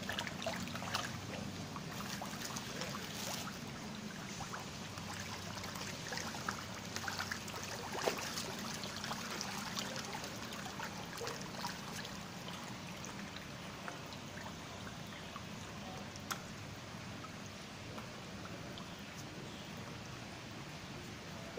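A dense crowd of red fish churning the pond surface: steady splashing and sloshing water with many small plops.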